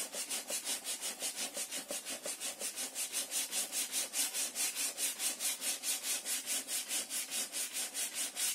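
Hand sanding the wooden planked hull of a model ship with coarse 60-grit sandpaper: fast, even back-and-forth rubbing strokes, about five or six a second. The strokes stop suddenly at the very end.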